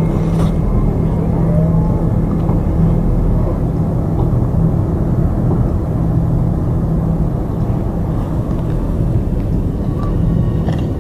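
A vehicle running: a steady, loud rumble with a constant low hum.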